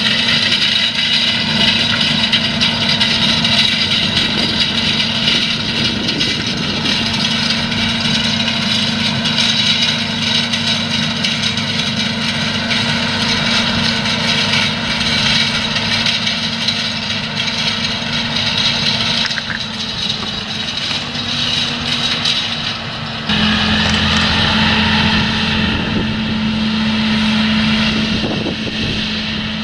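Large John Deere tractor's diesel engine pulling hard at a steady pitch as it draws a disc cultivator through stubble, with the noisy rush and rattle of the implement's discs working the soil. About three-quarters of the way through the sound changes suddenly to a deeper, steadier engine hum.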